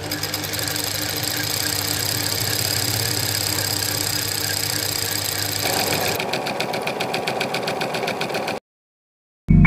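Sewing machine running steadily at a fast, even stitch. Its sound shifts a little past the halfway mark, and it stops abruptly near the end.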